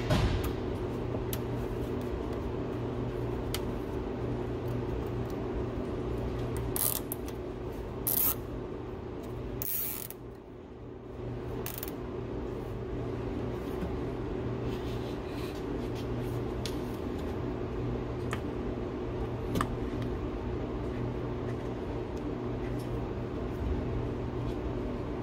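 Short ratcheting rasps and scattered clicks of nylon zip ties being pulled tight to secure a wiring harness, over a steady low hum.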